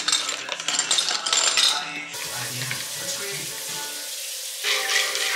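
Water poured from a plastic jug into a glass hookah base, a loud splashing hiss that stops about two seconds in. Background music follows.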